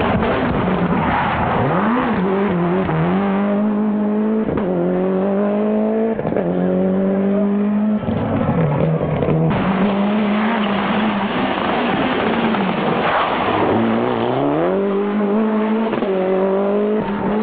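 Toyota Celica GT-Four ST185 rally car's turbocharged four-cylinder engine driven hard, its note climbing and dropping again and again with gear changes and lifts. The sound changes abruptly about eight seconds in and again a second and a half later.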